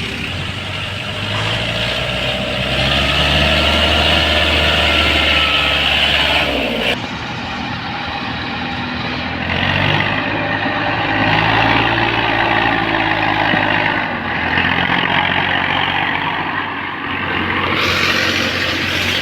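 Diesel tractor engine running hard and revving, its pitch rising and falling. The sound changes abruptly twice partway through.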